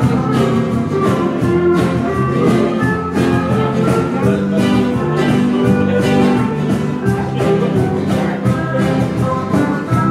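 Live Indo band music with steel guitar, guitars, bass guitar and percussion, playing a song with a steady beat.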